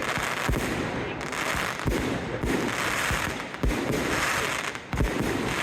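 Aerial fireworks display: shells bursting with irregular deep booms, roughly one a second, over a continuous crackling hiss.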